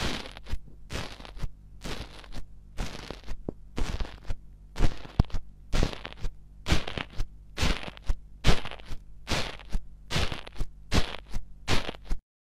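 Dense coloured foam in a metal pan being poked again and again with a small blue-handled tool, each poke giving a short, crisp crunch, about two a second. The sound cuts off abruptly near the end.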